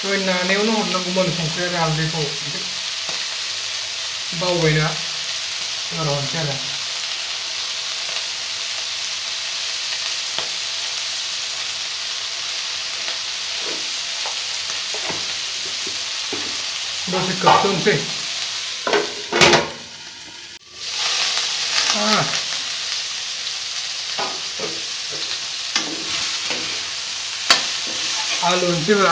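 Chicken pieces frying in hot oil in a steel kadai, a steady sizzle. In the second half a spatula stirs and scrapes them around the pan. The sizzle cuts out briefly about two-thirds through.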